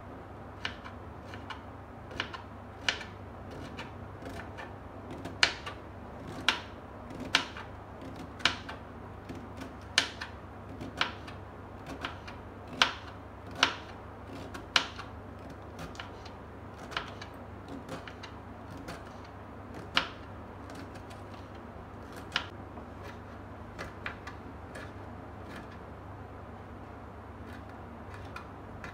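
Kitchen knife slicing cabbage on a wooden cutting board: the blade knocks sharply against the board in an irregular run, about one cut a second, the cuts growing sparser in the last third.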